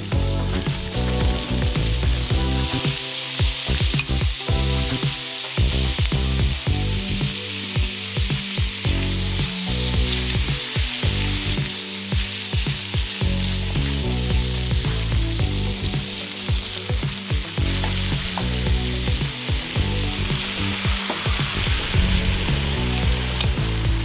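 Potato, carrot and onion chunks sizzling in a non-stick frying pan over medium heat, with a spatula clicking and scraping against the pan as they are turned.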